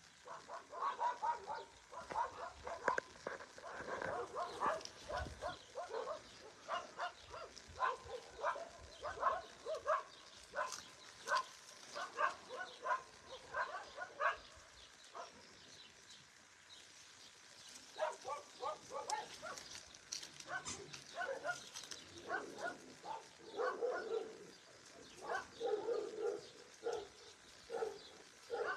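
Small dogs barking in runs of short, quick yaps while they play-fight. The barking stops for a few seconds about halfway through, then starts again.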